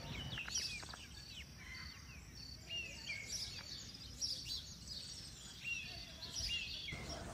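Small birds chirping and calling, many quick high chirps and short whistled notes, over a low steady rumble.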